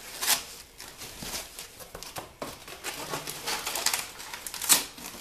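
Foam wrap sheeting and crumpled brown packing paper rustling and crinkling as they are pulled out of a shipping box, with a sharp crackle about a third of a second in and a louder one near the end.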